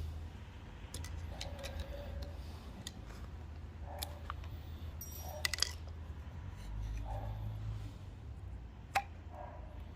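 Scattered metallic clicks and clinks of hand tools and fittings as the diverter valve of a Vaillant ecoTEC combi boiler is worked on, over a steady low hum.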